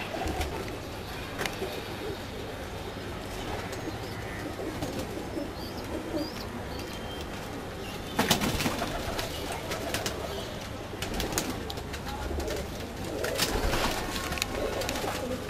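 Domestic pigeons cooing in a low, continuous murmur. A few short, sharp noises break in about halfway through and again near the end.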